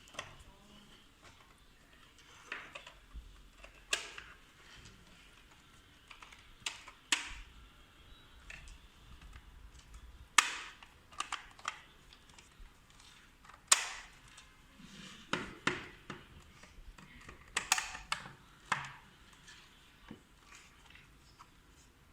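Plastic clicks and taps of a mini DVR's top cover being handled and snapped back into place: about fifteen sharp clicks at irregular intervals, the loudest near the middle and about three-quarters through.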